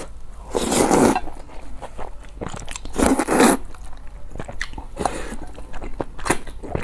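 A person slurping glass noodles with two loud slurps, about a second in and about three seconds in. Wet chewing and lip smacks come in between.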